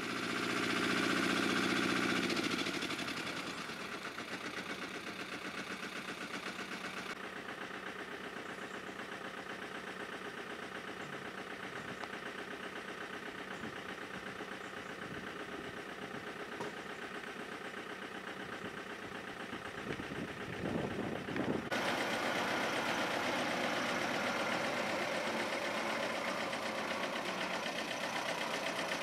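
Diesel engine of a DAF heavy-haulage truck idling steadily. The sound shifts abruptly a few times and is louder for the last several seconds.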